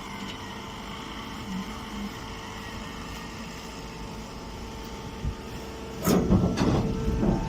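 Baling press machinery running with a steady hum. About six seconds in, louder irregular knocking and clattering start.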